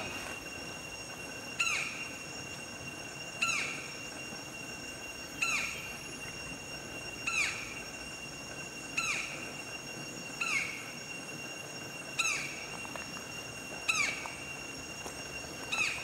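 White-bellied woodpecker calling, a loud downslurred note repeated about every two seconds, nine times, over a steady high-pitched ringing in the background.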